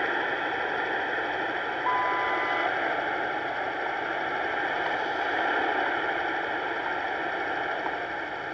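Shortwave radio tuned to the WWV time station on 15 MHz, giving a steady hiss of static. About two seconds in comes a single high beep lasting under a second, WWV's top-of-the-minute marker tone.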